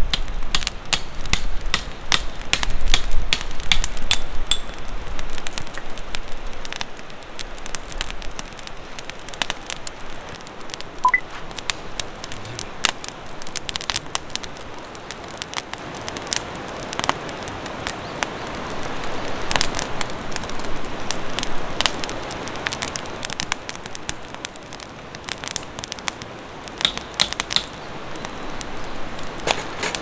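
Wood fire crackling, with irregular sharp pops and snaps from the burning logs.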